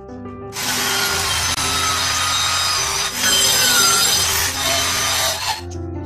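Handheld electric power tool cutting through a rubber tyre: a loud, steady buzz with a faint whine that starts about half a second in, dips briefly about three seconds in, and stops about a second before the end.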